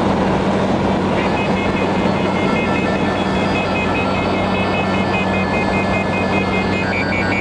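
Steady vehicle road and engine noise with a hum, and from about a second in a rapid, repeating electronic beeping tune like an alarm that shifts pitch.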